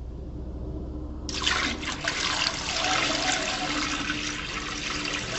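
Red wine poured steadily from a glass jug into a Monsieur Cuisine's stainless steel mixing bowl, splashing into the juice already in it; the pour starts about a second in.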